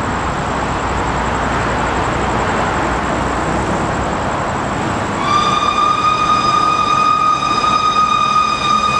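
Locomotive whistle blowing one long, steady, high-pitched note, starting about five seconds in, over a steady rushing noise of the train.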